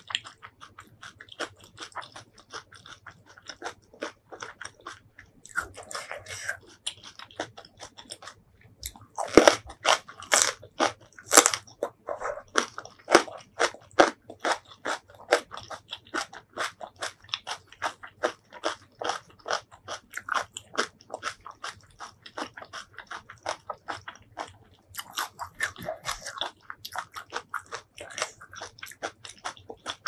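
Close-mic mouth sounds of biting and chewing crisp stuffed green chili kimchi: dense crunching and wet chewing clicks, the loudest crunches about a third of the way through.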